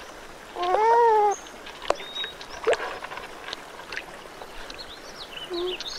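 North American porcupine giving one whining cry about a second in, rising then falling in pitch. Short high chirps, a few clicks and the steady rush of a stream run underneath.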